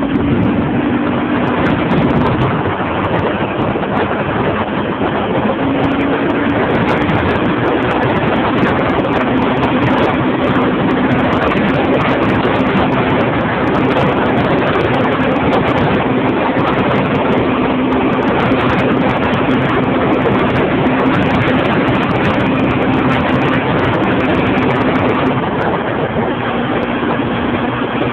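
Small motorbike engine running at a steady cruising speed, a constant hum under heavy wind rush on the microphone of the moving vehicle.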